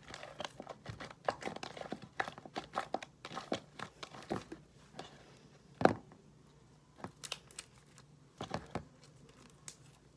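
Homemade glue slime, activated with contact lens solution, being mixed and worked: irregular sticky crackling and tearing pops. They come thick and fast at first, then one louder pop about six seconds in, then a few scattered ones.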